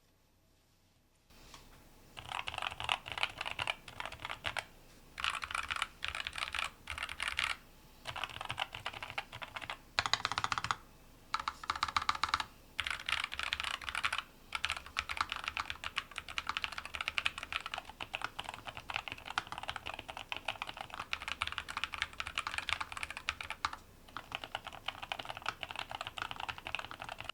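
Typing on a NuPhy Air96 V2 low-profile mechanical keyboard with Wisteria switches: fast, continuous keystrokes starting about a second in, in runs of a few seconds broken by brief pauses.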